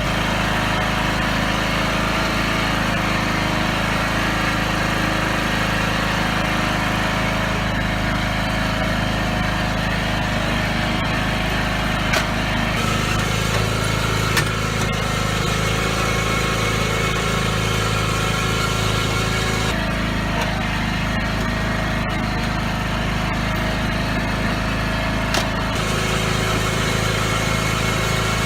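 John Deere riding lawn mower engine running steadily, its pitch shifting slightly a few times, with a few brief clicks.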